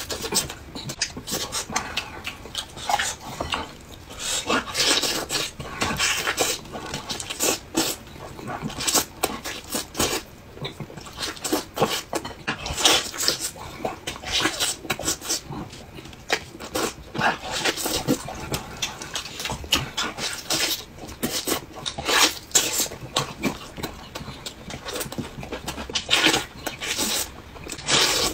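A man eating roast chicken with his hands close to the microphone: wet chewing and lip-smacking, with meat torn off the bone, in a dense, irregular run of smacks.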